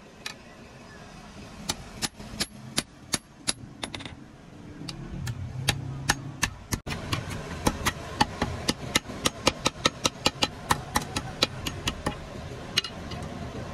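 Hand hammer striking a steel digging-tool blade on a block anvil with sharp metal-on-metal blows. The blows are spaced out and uneven at first, then settle about halfway through into a steady run of about three a second. A low machine hum runs underneath.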